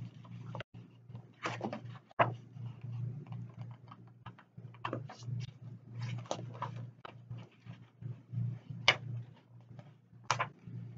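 Sheets of paper rustling and pages being turned and shuffled in irregular short bursts, over a steady low hum.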